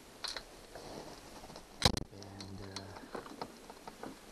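Small clicks and knocks of a screwdriver and metal door-lock parts being handled, with one sharp double clack about two seconds in, followed by a brief low hum.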